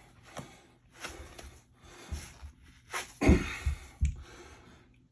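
A man breathing hard in heavy, ragged breaths after the effort of cranking knee wraps tight. A few dull thumps come about three to four seconds in.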